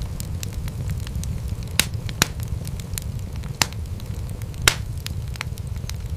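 Wood fire crackling steadily with many small sharp snaps over a low rumble of burning. A few louder pops come in the middle.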